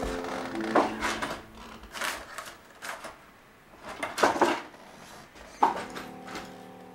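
A few short scuffs and knocks of a person moving at an open front door. A held music chord sounds at the start and comes in again near the end.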